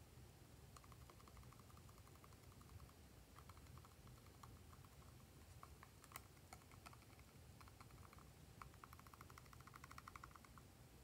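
Thick slime being squeezed out of a small plastic bottle, heard as faint, rapid sticky crackling clicks in repeated bursts. Two sharper clicks come about six and seven seconds in.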